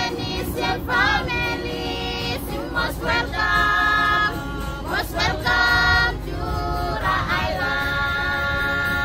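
A group of voices singing together in long held notes. A low rumble sits underneath.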